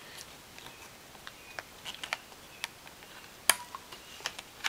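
Scattered light clicks and taps of laptop RAM modules being handled and pulled from their slot, with one sharper click about three and a half seconds in.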